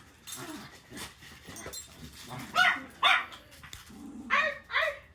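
A puppy barking four short times, in two pairs.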